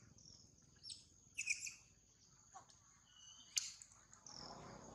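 Scattered short bird chirps, a few in quick succession in the first two seconds, and a sharp click about three and a half seconds in, over a faint steady high hum.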